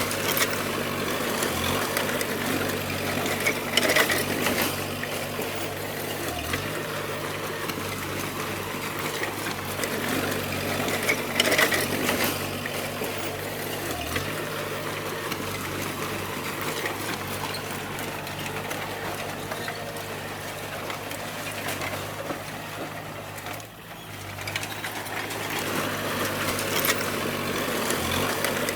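Bulldozer's diesel engine running steadily, with a few sharp knocks and clanks from the machine working, about 4 and 11 seconds in.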